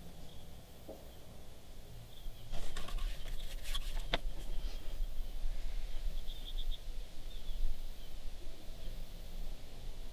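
Outdoor ambience: short high chirps from a small animal, repeating in quick groups of three or four. A burst of sharp clicks and knocks comes about three to four seconds in, with a low rumble from then on.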